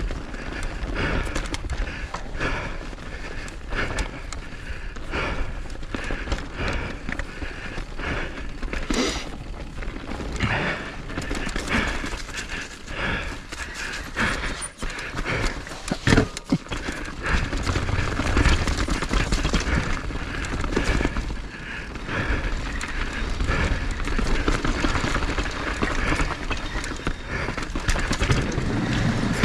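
Edges scraping and sliding on snow in a series of turns, with repeated scrapes over a steady low rumble.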